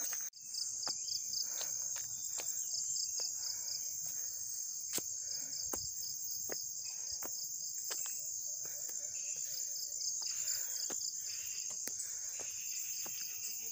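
Steady, high-pitched chorus of forest insects, with a rapid pulsing trill under the continuous buzz. Footsteps crunch and click on a stony dirt path over it.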